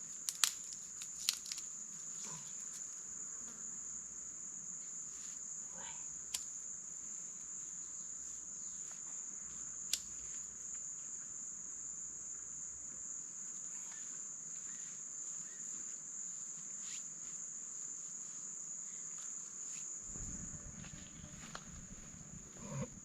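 Steady high-pitched insect chorus, a continuous chirring drone, with a few sharp clicks or snaps in the first ten seconds and a low rumble that comes in near the end.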